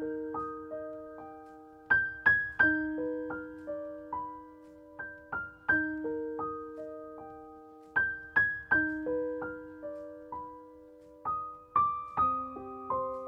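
Background music: a gentle piano melody of single notes and broken chords, each note ringing out and fading, in a slow phrase that repeats every few seconds.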